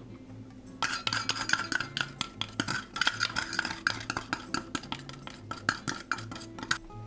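A utensil stirring briskly in a bowl, clinking rapidly against its side for about six seconds, starting about a second in and stopping just before the end.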